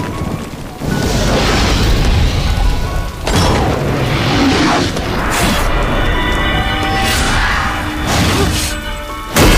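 Drama film soundtrack: a dramatic music score under fight sound effects, several sudden swooshes and booming hits spaced a second or two apart. Just before the end the music suddenly gets louder.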